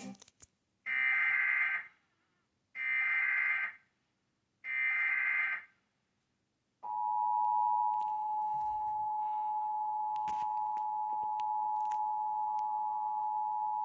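Emergency Alert System test: three short screechy bursts of SAME header data tones with gaps between them, then the steady two-tone EAS attention signal starts about seven seconds in and holds.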